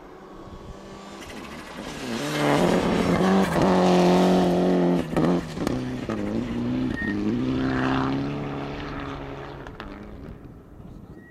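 Mitsubishi Lancer Evolution rally car's turbocharged four-cylinder engine at full throttle. It comes up loud, cuts out briefly at gear changes around the middle, pulls again, then fades away as the car drives off.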